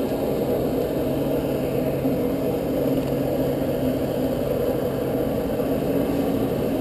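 Jet ski engine running steadily under load, pumping water up the hose that powers a flyboard, a continuous hum with the rush of the water jets beneath it.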